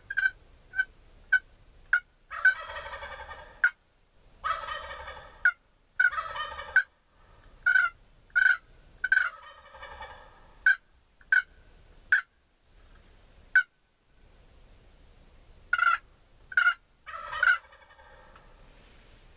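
Wild turkeys calling: several gobbles about a second long, with many short, sharp single notes in between.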